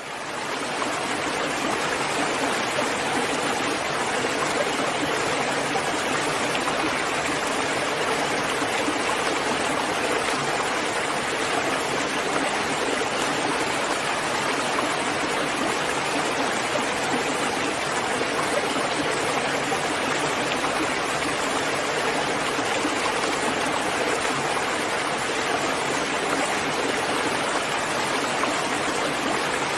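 Steady, even rain sound, a dense continuous hiss of falling rain that fades in over the first second and then holds level.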